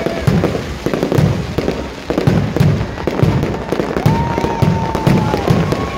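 Fireworks display at close range: heavy booms of bursting aerial shells, two or three a second, over continuous crackling. A drawn-out high whistle-like tone rises in about four seconds in and fades out a second and a half later.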